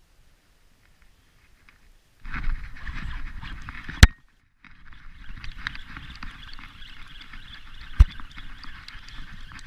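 Handling noise on the camera: rubbing and scraping against the housing that starts suddenly about two seconds in. There is a very loud sharp knock about four seconds in and a second knock near the end.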